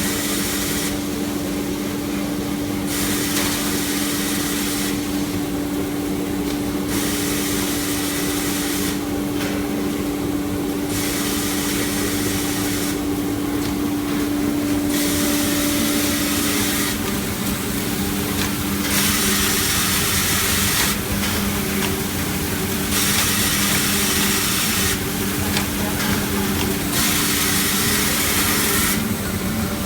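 Maxi-roll toilet paper band saw cutting machine running, with a steady motor hum under a hissing noise that switches on and off about every two seconds.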